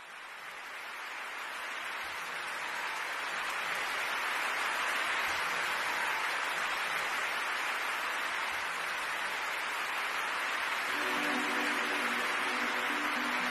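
A steady rushing noise that fades in at the start and holds evenly. About eleven seconds in, music begins faintly beneath it.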